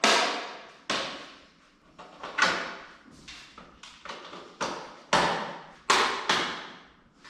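Plastic motorcycle fairing panels being pressed and clipped onto the tail section: about a dozen sharp knocks and clacks, irregularly spaced, one or two a second.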